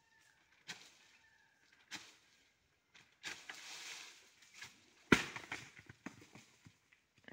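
Coconuts being brought down from a palm with a long bamboo pole: a few sharp knocks and a stretch of rustling, then a loud heavy thud about five seconds in as a coconut hits the ground, followed by small rattles.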